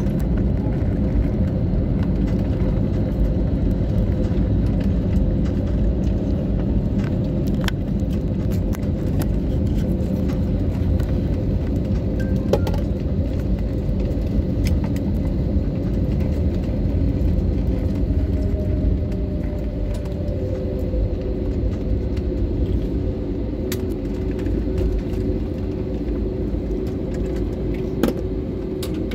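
Steady rumble of an airliner heard inside the cabin as it rolls down the runway after landing: wheels on the runway and engines, with a steady hum, easing slowly. A few light clicks or rattles sound now and then.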